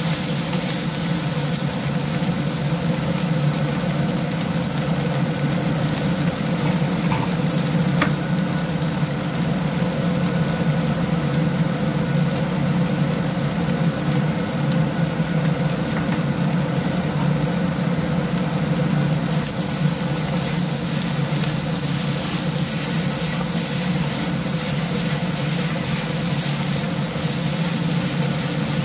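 Fried rice sizzling in a wok as a spatula stirs and tosses it, over a steady low hum.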